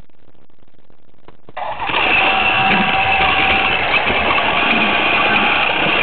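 Battery-powered Duplo toy train's small electric motor starting about a second and a half in, then running steadily with a high whine over a rattling, noisy drive as the train moves along the plastic track.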